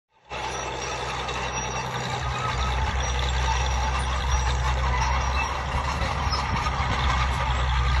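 Fiat-Allis crawler tractor's diesel engine running steadily under load as it pulls a deep plough through the soil.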